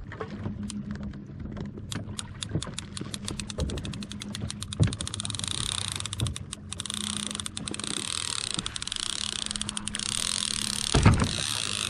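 A conventional fishing reel's drag going off as a hooked fish takes line. Separate clicks speed up into a continuous high whine that holds as the line pays out, with a thump near the end. The angler suspects the fish is a shark.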